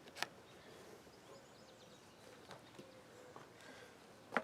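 Faint outdoor background with two short, sharp clicks, one just after the start and a louder one near the end.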